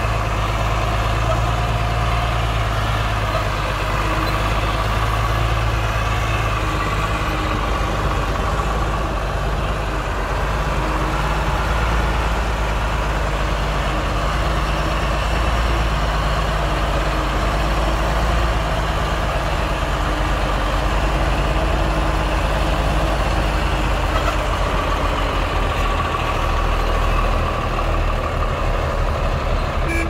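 Heavy diesel engine of construction machinery running steadily, a deep drone with a steady higher whine over it.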